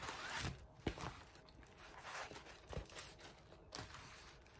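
Faint rustling and crinkling of large glossy diamond painting canvases being handled and shifted over one another, with a few soft sharp taps.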